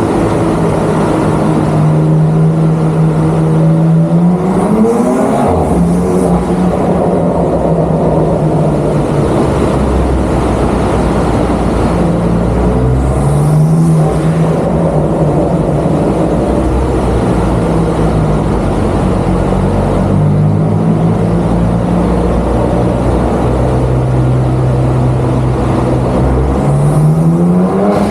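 Car engine idling steadily and revved three times, about 4 s in, about 13 s in and near the end, each rev a quick rise in pitch that settles back to idle.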